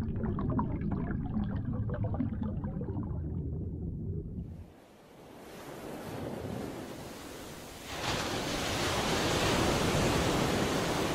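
Sea surf: waves breaking and washing in, building from about four and a half seconds in and growing louder and brighter about eight seconds in. Before it, a low rumble fades out.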